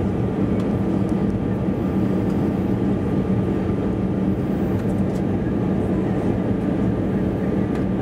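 Cabin noise inside an Airbus A320-216 on approach: a steady rush of air with the even hum of its CFM56 engines, a low drone and a faint higher whine over it.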